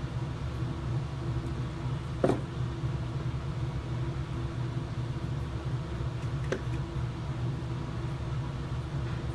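Steady low machine hum in the background, with a few short clicks; the clearest click comes a little after two seconds in.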